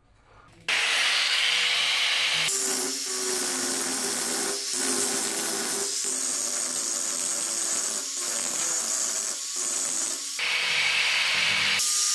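Angle grinder with an abrasive disc grinding rust off a steel meat cleaver blade: a steady motor whine under a harsh grinding hiss. It starts suddenly a little under a second in, dips briefly a few times, and grinds harsher near the start and near the end.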